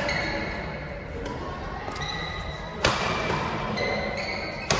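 Badminton rackets striking a shuttlecock during a doubles rally: two sharp hits, the louder about three seconds in and another near the end, ringing in a large hall.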